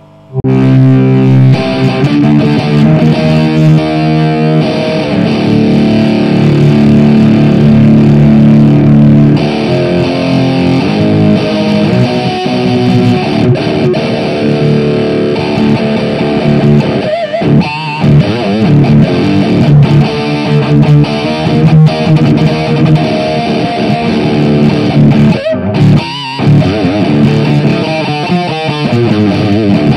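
Electric guitar played through a Boss Metal Zone distortion pedal into the crunch channel of a Soldano SLO 30 Mini valve amp head, giving a heavy, saturated distorted tone. It plays held chords and riffs, with two short breaks in the playing.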